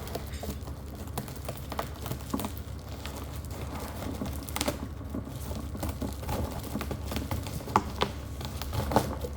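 Perfume and diffuser packaging handled by hand for unboxing: a steady run of small clicks, taps and rustles, with a couple of sharper knocks near the end.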